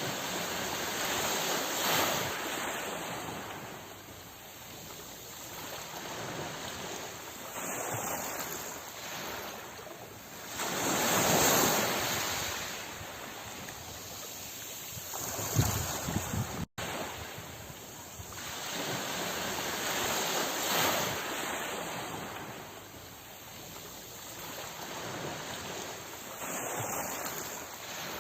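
Ocean waves breaking and washing on the shore, swelling and ebbing with a big surge about every ten seconds. The sound cuts out for an instant about two-thirds of the way through.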